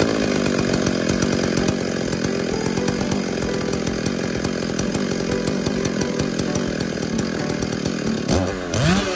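Stihl MS382 two-stroke chainsaw engine idling steadily while its carburetor is adjusted with a screwdriver. Near the end it is revved up sharply once and drops back.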